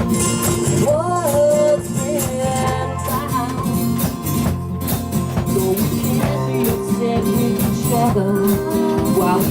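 A song: strummed acoustic guitar with a voice singing short phrases.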